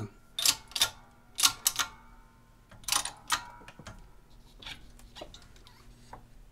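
Sharp metallic clicks from a 6-ton bench hydraulic press and its die as a coin ring is pressed down in a 17-degree die: three pairs of clicks in the first three and a half seconds, then a few fainter taps. A faint steady hum runs underneath.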